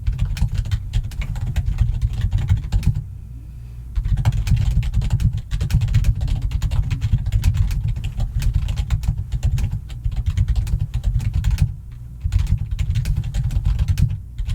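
Rapid, hard typing on a computer keyboard: a dense run of keystrokes with a short pause about three seconds in and brief breaks near the end.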